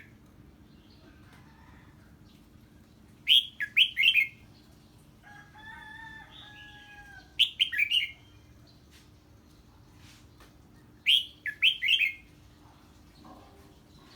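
Red-whiskered bulbul singing its loud 'ché' song when it hears an unfamiliar bird: a short phrase of three or four quick falling notes, repeated three times about four seconds apart. Between the first two phrases, a fainter, steadier call from another bird.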